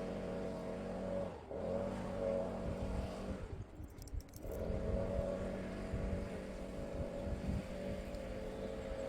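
Petrol leaf blower's engine running steadily while blowing fallen leaves off a road. It dips briefly about a second and a half in, falls away for about a second just past the three-second mark, then comes back up to full.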